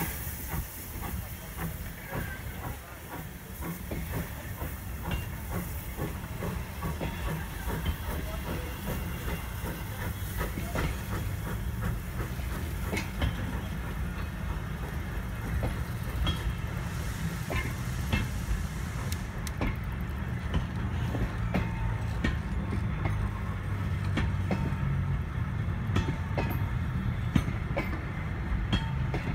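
Vintage passenger carriages of a heritage steam train rolling slowly over a level crossing: a steady low rumble with scattered clicks of wheels over the rails. A steam hiss fades out about two-thirds of the way through.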